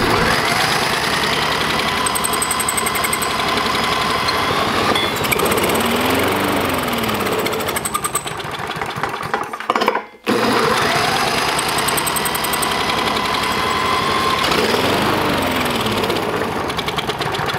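Cordless drill whining as it spins a lawn mower engine over by the flywheel nut, the engine cranking on Everclear without catching. Two bouts, each starting with a rising whine, broken off briefly about ten seconds in.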